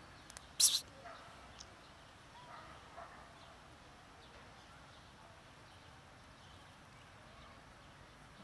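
A single short, loud 'psst' hiss from a person calling a cat, less than a second in, then faint outdoor background.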